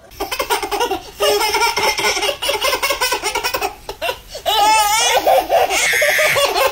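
Babies laughing in rapid, repeated giggles, with a higher wavering squeal a little after the middle.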